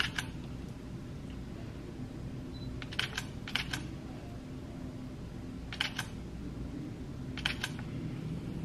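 Camera shutter firing five times, each shot a quick double click, over a low steady room hum.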